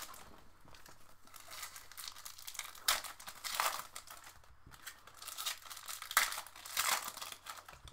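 Crinkling and tearing of the wrapping as a sealed box of hockey trading cards is opened: irregular rustles and crackles, with louder rips about three seconds in and again near the end.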